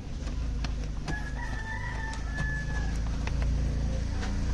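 A rooster crowing once, a long held call starting about a second in, over a steady low hum with scattered light clicks.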